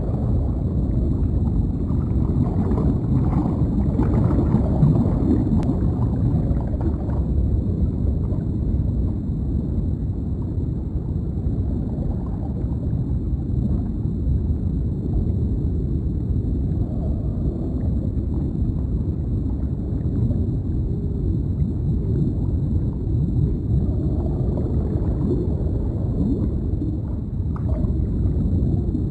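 Deep underwater ambience: a steady low rumble with soft bubbling and gurgling.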